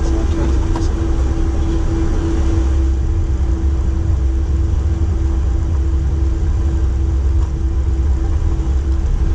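Airbus A330 cockpit noise while taxiing after landing: a steady low rumble with a constant mid-pitched hum.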